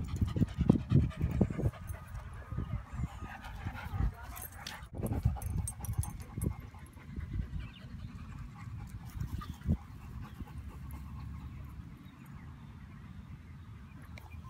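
A dog panting close by, over low thumps and rumble that are loudest in the first couple of seconds and fade to a faint steady rumble.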